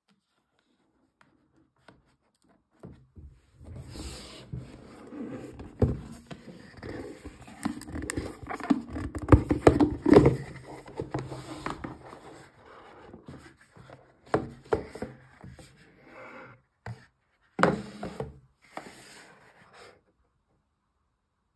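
A cardboard gift box being opened by hand, its lid and inner card rubbing, scraping and knocking against the box in irregular bursts. It starts about three seconds in and is loudest around the middle.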